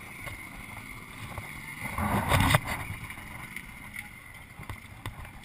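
KTM dirt bike engine idling, muffled as heard through the camera's waterproof housing, with a brief louder burst about two seconds in.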